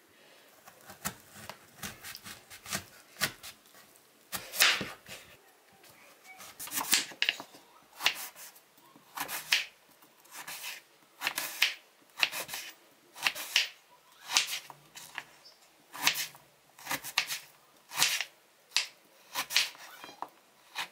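Kitchen knife cutting through a firm green guava and knocking on a wooden cutting board: repeated cuts about once a second, lighter for the first few seconds and sharper after that.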